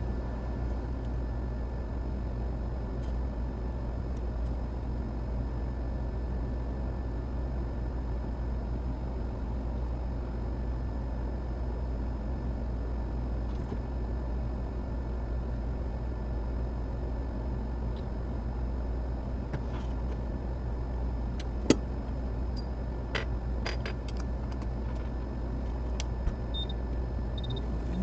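Steady low hum and hiss of bench repair equipment running, with faint steady high tones above it. A few sharp clicks of small tools come near the end, the loudest a little past two-thirds of the way in.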